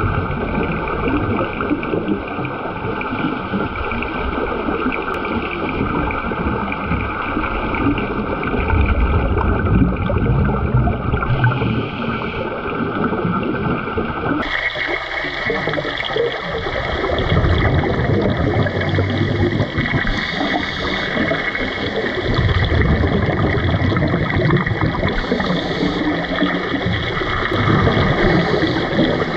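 Underwater sound of scuba divers breathing through their regulators: a steady hiss with swells of exhaled bubbles every few seconds. The sound changes abruptly about halfway through.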